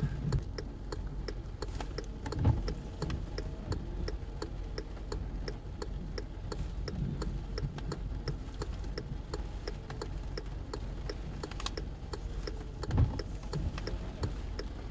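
Car's turn-signal or hazard flasher clicking steadily, about two to three clicks a second, over the low hum of the car idling while it sits stopped. A couple of low thumps come in, one a few seconds in and one near the end.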